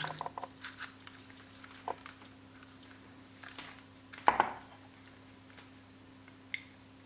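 Light clicks and knocks of hard plastic and small parts being handled on a workbench, with a sharper clack about four seconds in and a brief high beep near the end, over a faint steady electrical hum.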